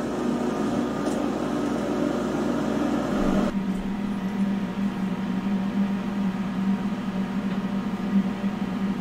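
Steady electric hum of a K40-type desktop laser cutter's fans running. A rougher noise fills the first few seconds and gives way abruptly to the even hum about three and a half seconds in.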